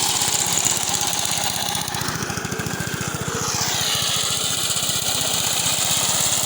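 Petrol lawnmower engine running steadily under load while cutting tall grass, with a rapid even firing beat and a brief shift in pitch about halfway through.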